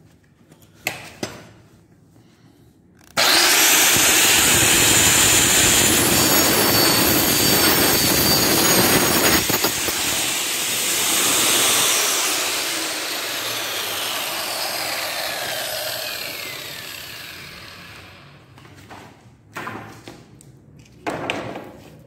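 Electric power saw cutting through a wooden slat. It starts abruptly about three seconds in and runs loud for several seconds, then the motor winds down with a falling whine. A few light knocks of wood being handled come near the end.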